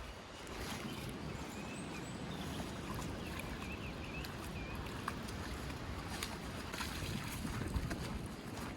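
Steady rush of running water from rain-swollen streams, with a few brief high chirps in the middle.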